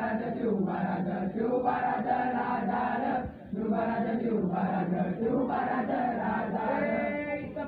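A group of boys singing a Marathi song together in unison, chant-like, into one microphone, with a brief break about three seconds in.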